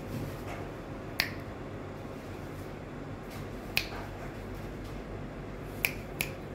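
Fingers snapping four times at uneven intervals, short sharp clicks, the last two close together, over a steady low hum.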